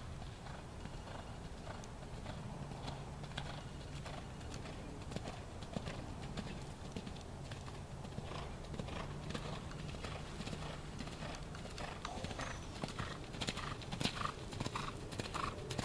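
Hoofbeats of a Thoroughbred horse cantering and jumping on wet sand arena footing, louder near the end as the horse comes closer.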